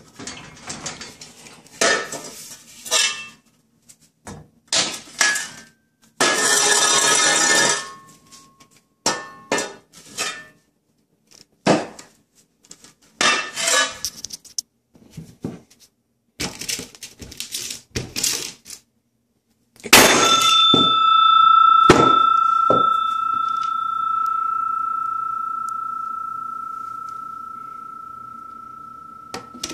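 Knocking, scraping and clattering as the old Droid X2 phone is smashed up, with a steady hiss lasting about two seconds a few seconds in. About two-thirds of the way through comes a loud metallic strike that rings on with one clear tone, fading slowly.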